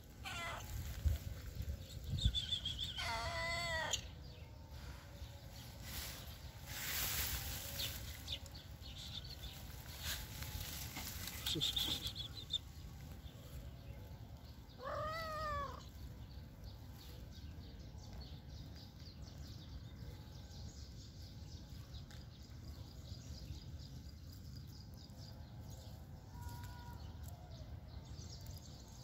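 Cat meowing: a few drawn-out meows, one at the very start, a longer wavering one about three seconds in, and another about fifteen seconds in.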